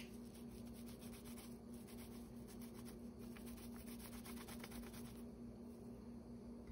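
Faint rubbing and soft ticking of hands rolling a piece of cornmeal festival dough between the palms, over a steady low hum.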